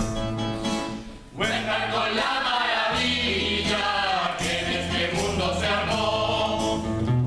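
A stage cast of men and women singing a song together in chorus. It starts about a second and a half in, after a short stretch of music that drops away.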